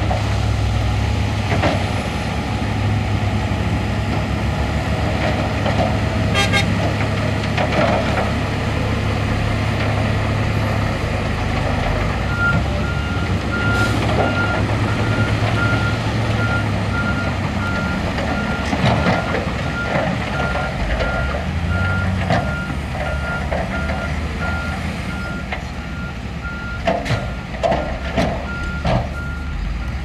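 Heavy diesel engine of a SHANTUI crawler bulldozer running steadily while working rock fill, with a reversing alarm beeping at an even pace from about twelve seconds in as the dozer backs up. A few sharp knocks near the end.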